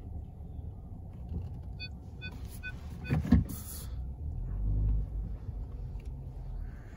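Inside the cabin of a VW Passat with its 1.5 TSI engine, creeping at walking pace: a steady low rumble, with the parking-distance sensors beeping about four times in quick succession around two seconds in. Just after the beeps comes one sharp knock, the loudest sound, followed by a brief hiss.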